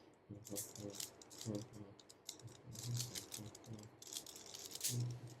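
Rubik's cube being turned quickly by hand, its plastic layers clicking and rattling in rapid irregular runs.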